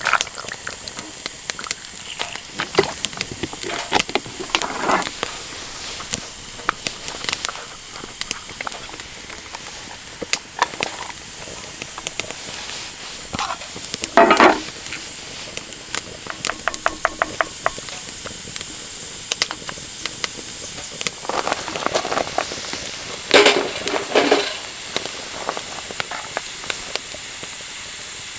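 A pan of chicken for dakbokkeumtang (Korean spicy braised chicken) sizzling on a camp stove. A utensil stirs and scrapes against the pan throughout. There are louder clatters about halfway through and again near the end.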